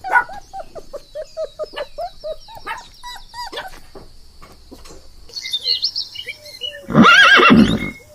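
Animal calls: a fast run of short, repeated chirps with a thin high trill over them, then one louder drawn-out call about seven seconds in.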